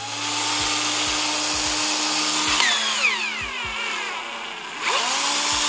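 Bosch PSR 960 cordless drill's motor running on its freshly rebuilt Ni-Cd battery pack: it spins up and runs steadily, winds down with a falling whine about halfway, then speeds up again near the end. It is a test run showing the repaired pack drives the drill.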